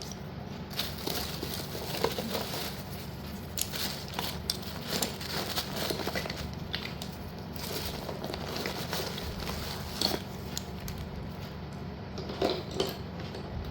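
Hands handling slate pieces and their plastic packaging: light rustling and crinkling with scattered small clicks and knocks, over a steady low hum.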